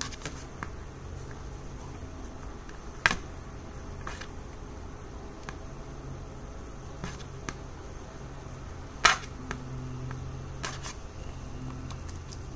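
Sharp clicks and snaps of packaging being worked at to cut a toy free, the two loudest about three seconds in and about nine seconds in, over a steady low hum.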